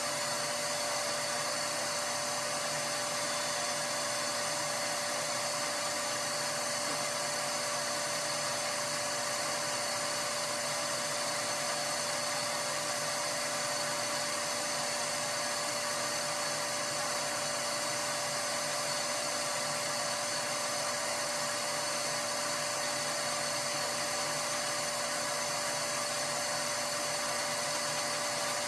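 A small electric motor running steadily with a high-pitched whine that does not change in pitch or loudness.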